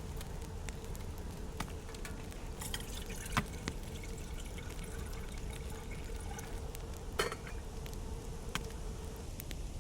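Water sounds, such as liquid being poured or moving in a vessel, over a steady faint tone that stops near the end, with three sharp snaps.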